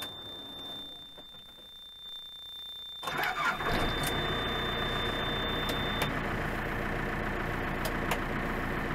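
A backhoe's diesel engine cranks and catches about three seconds in, then settles into a steady idle. A thin, steady high warning tone sounds before the start and stops a few seconds after the engine catches.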